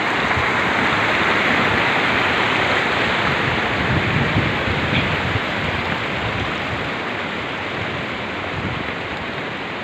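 Loud, steady rushing of a river in flood, with uneven low rumbling underneath.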